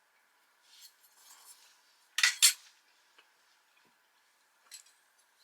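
A spoon scraping and clinking against a dish of food, with two sharp clinks a little over two seconds in, fainter scrapes about a second in and a small click near the end.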